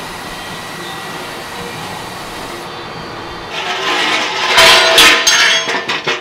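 Steel diamond-plate lift ramp being picked up and handled, scraping and clanking on the concrete floor with some metallic ringing, starting a little past halfway through. Before that only a steady background hum.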